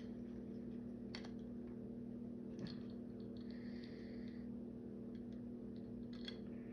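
Small plastic toy parts clicking now and then as they are handled and pressed together, a few sharp clicks spread across the few seconds, over a steady low hum.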